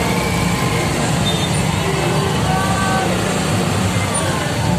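Engines of a dense pack of motorcycles running together at crawling speed, a steady low rumble with no single rev or horn standing out.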